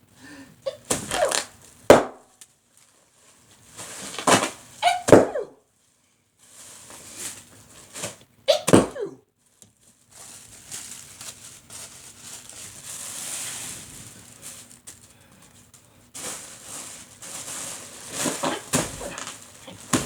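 Bags being handled and popped: a sharp pop about two seconds in and a long stretch of crinkling, rustling noise through the middle, with several short, gliding vocal sounds in between.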